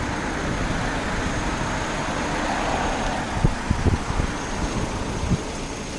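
Street traffic and a car's engine running nearby, a steady rumble with a few short low thumps a little past the middle.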